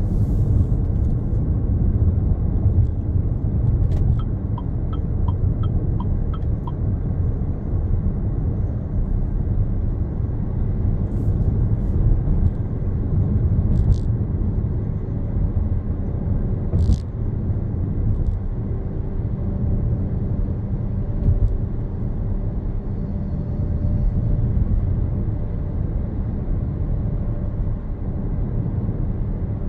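Car driving on a road: a steady low rumble of engine and tyre noise. About four seconds in, a short run of about seven quick, evenly spaced ticks.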